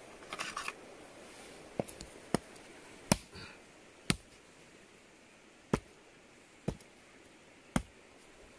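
A large knife striking the head of a big catfish lying on sand: a series of sharp knocks, one about every second, with a short rustle of handling near the start.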